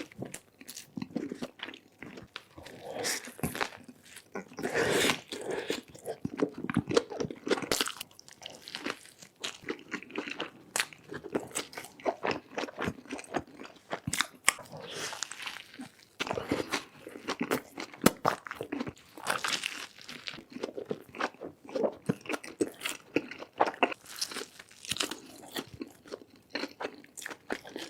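Close-up eating of a cheeseburger: bites and wet, irregular chewing with crunchy and smacking sounds at the mouth.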